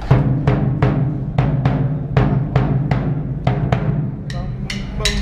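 Large bass drums beaten in a steady rhythm, about two to three strikes a second, each hit leaving a deep booming resonance.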